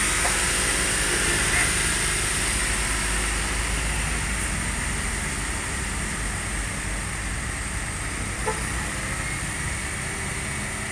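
Diesel engine of a liquid-oxygen tanker truck running steadily as the truck pulls slowly along a wet road, with a steady hiss over it. A brief click sounds about eight seconds in.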